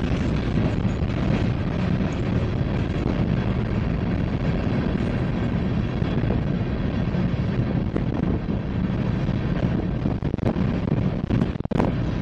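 Covered hopper cars of a freight train rolling past, a steady rumble of steel wheels on the rails.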